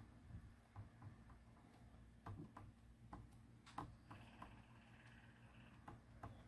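Faint, scattered light taps and clicks as a Crafter's Companion Harmony quick-dry ink pad is dabbed onto clear stamps to ink them, a few taps sharper than the rest.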